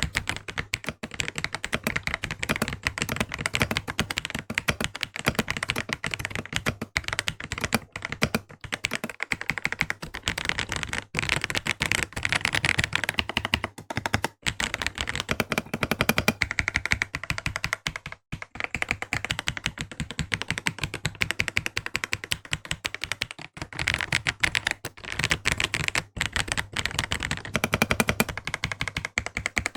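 Typing test on a mechanical keyboard with an FR4 plate, linear switches and transparent keycaps: fast, steady keystroke clacks with a few short pauses, showing how the board sounds with the new keycaps.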